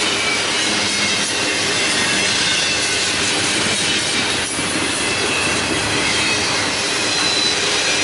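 Intermodal freight train of container cars rolling past: a steady rumble and clatter of steel wheels on the rails, with faint high wheel squeal.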